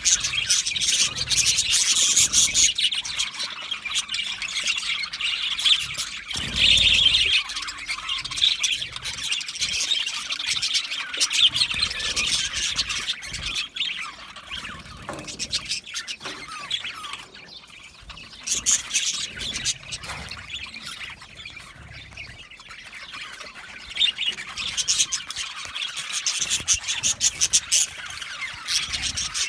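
Budgerigars chirping in a rapid, continuous chatter mixed with squawks, busiest near the start and end and thinner in the middle.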